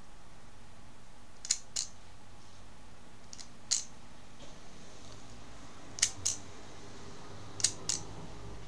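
Plastic toy Zyudenchi battery clicking as its mechanism is worked by hand, the picture in its window changing: four pairs of sharp clicks, a couple of seconds apart.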